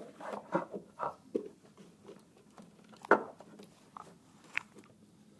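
Rustling and small clicks of hands pushing a rubber hose through braided wiring loom and other engine-bay lines, with one sharper click about three seconds in.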